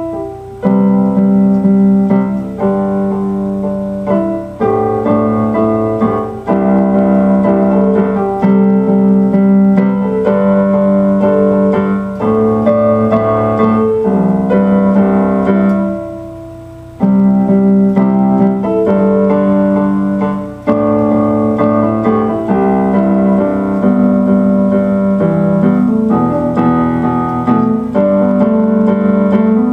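Instrumental keyboard music: sustained electric-piano chords that change every second or two, with a brief fade and pause about halfway through.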